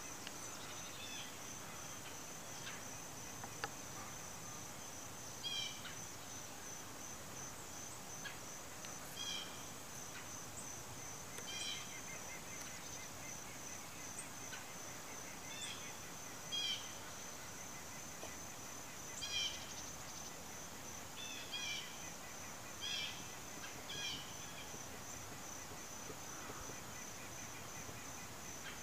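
Insects trilling steadily, a fast high pulsing, with short chirps breaking in every two or three seconds.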